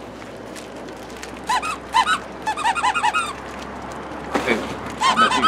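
Squeaky plush dog toy squeezed by hand: a quick run of short high squeaks starting about a second and a half in, then a few more near the end.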